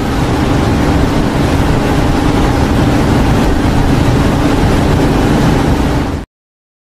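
A steady, loud droning noise with a low hum, which stops abruptly about six seconds in.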